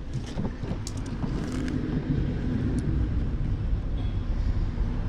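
Engine idling: a low steady rumble, with a few light clicks and taps in the first two seconds.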